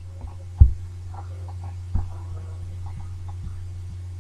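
Steady low electrical hum on the narration recording during a pause in speech, with a short soft thump about half a second in and a fainter one about two seconds in.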